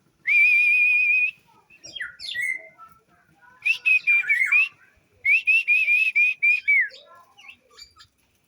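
Songbird singing loud, high whistled phrases. A long warbling note comes first, then short scattered notes, then a run of quick wavering whistles that ends on a falling note.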